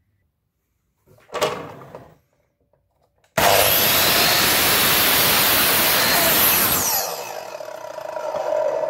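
Electric mitre saw cutting through a timber board. A short knock comes a little over a second in. Then the saw starts abruptly and runs loud for about three and a half seconds, after which it drops off and winds down with a ringing tone.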